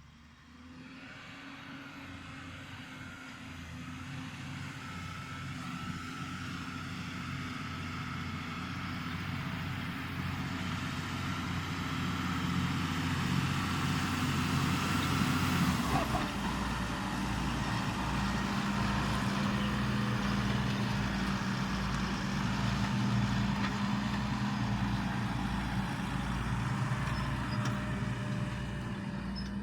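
Deutz-Fahr 6205 RShift tractor's diesel engine working under ploughing load, growing steadily louder as the tractor approaches over the first half. A sharp knock comes about halfway through, and after it the engine runs loud and steady with a regular low throb.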